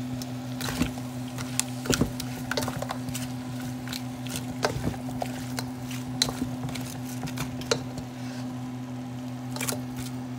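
A spoon stirring a wet, frying mixture in a cooking pot, with irregular clicks of the spoon against the pot over a steady low hum.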